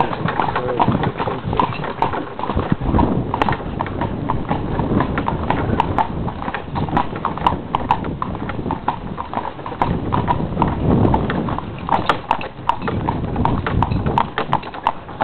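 A pony's hooves clip-clopping steadily on a paved road as it pulls a cart, a quick run of even knocks over a low rumble.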